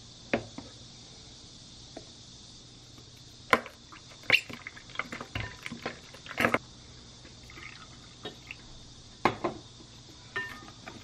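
Kitchen prep sounds while seasoning a glass bowl of flour for dough: a few sharp clicks and knocks as containers, a cooking-oil bottle and a metal measuring spoon are handled and set down around the bowl, spread irregularly over a faint steady hiss.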